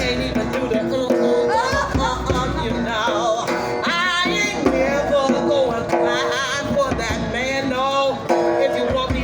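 A live singer vocalising wordless, wavering runs with vibrato over a steady guitar accompaniment.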